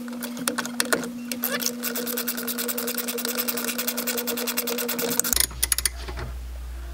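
Socket ratchet clicking rapidly and evenly as it is spun to back out a 12 mm bolt holding a brake master cylinder to the vacuum booster; the clicking stops about six seconds in.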